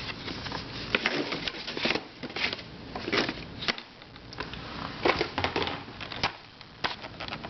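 Small plastic puzzles and their packaging being handled: irregular clicks, taps and light rustling.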